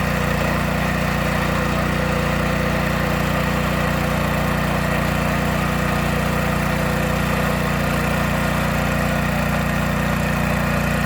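Engine of a UKB drilling rig running at a steady speed, a constant drone that does not change.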